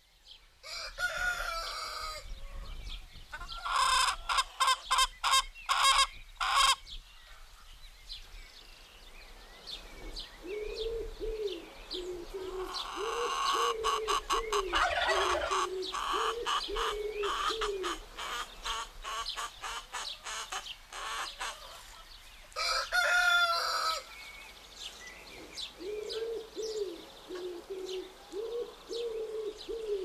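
Free-range chickens: hens clucking and a rooster crowing. Small birds chirp in the background, with runs of low, quick repeated calls.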